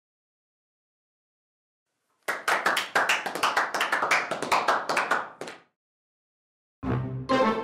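Applause: hands clapping for about three seconds, starting a couple of seconds in and stopping abruptly. Near the end a short piece of music begins.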